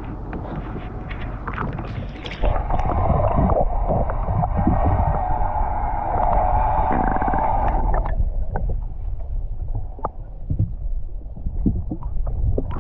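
Sea-Doo jet ski running on the river with water splashing around the hull; it gets louder with a strong, steady whine from about two seconds in, drops back around eight seconds in, and then goes on with scattered knocks and sloshing.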